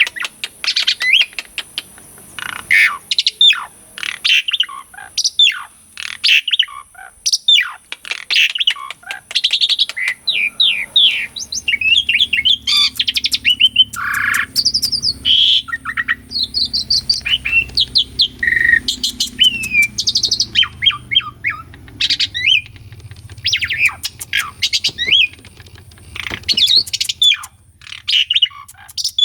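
Asian pied starling (jalak suren) singing a fast, varied song of chirps, sliding whistles and harsher notes, almost without a break.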